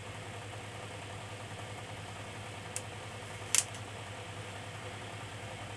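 Steady low mechanical hum throughout, with a faint tick and then a sharp click a little past halfway, as metal tweezers lift a solder-paste stencil off a circuit board.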